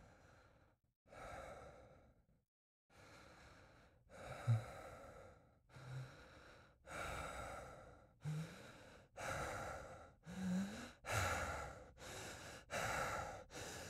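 A person breathing heavily in and out, the breaths coming faster and louder, with short voiced gasps among them from about four seconds in: laboured breathing, as of someone short of air.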